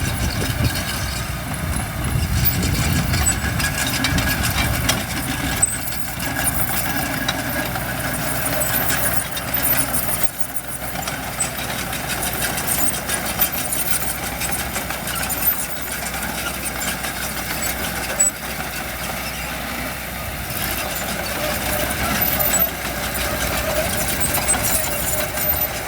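Diesel engines of heavy earthmoving machinery, dump trucks and a bulldozer, running steadily at a work site, with a heavier low rumble a couple of seconds in.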